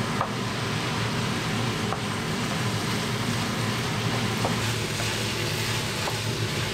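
Minced-meat and vegetable filling frying in oil in a large pan, sizzling steadily while it is stirred with a wooden spatula, with a few light scrapes of the spatula against the pan, over a steady low hum.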